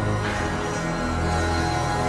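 Background music with sustained tones and no speech; a brighter, higher layer comes in about a quarter second in.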